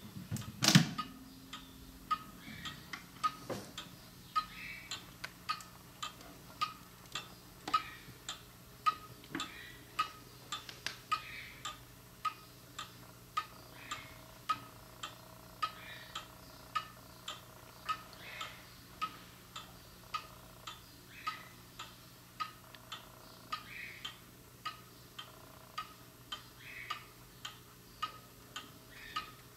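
Pendulum movement of a 1970s Silco chime wall clock ticking steadily, a regular tick-tock. About a second in comes one sharp, loud click as the wooden case door is opened.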